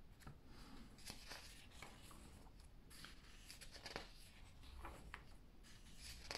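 Faint paper rustles as the glossy pages of a thick hardcover comic omnibus are turned by hand, a few soft swishes spread through an otherwise near-silent stretch.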